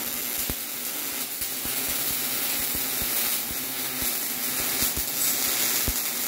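MIG welding arc on steel: a steady, frying-bacon sizzle peppered with irregular crackles and pops as the wire feeds into the weld puddle.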